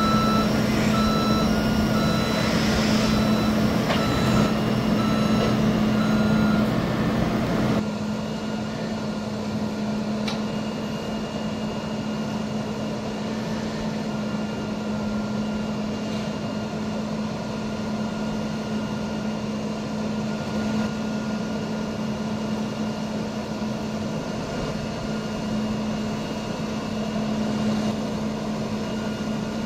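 Bucket truck's back-up alarm beeping at an even pace, about two beeps a second, over the steady drone of the truck's Cummins ISL9 diesel running. The beeping stops about seven seconds in and the engine keeps running.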